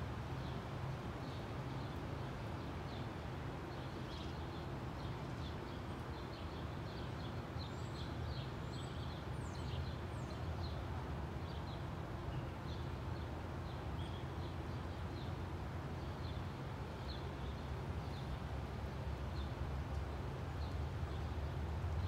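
Small birds chirping, many short high chirps and a few quick rising and falling notes, clustered in the middle stretch, over a steady low outdoor rumble.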